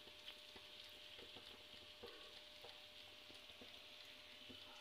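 Faint sizzling with scattered small pops from thick white sauce simmering in a frying pan on a gas burner.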